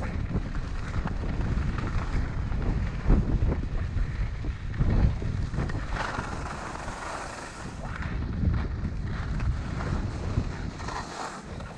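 Wind buffeting a GoPro Hero 6's microphone during a downhill ski run, over the steady hiss and scrape of skis sliding across packed, tracked snow. Louder hissing scrapes come about six seconds in and again near the end, as the skis carve turns.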